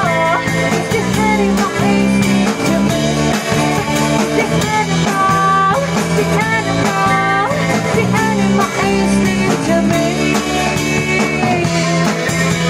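Live rock band playing with a woman singing: drum kit, acoustic guitar and electric guitars.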